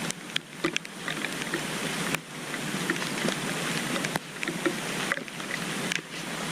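Steady rainy outdoor hiss with scattered crunching footsteps on a wet trail.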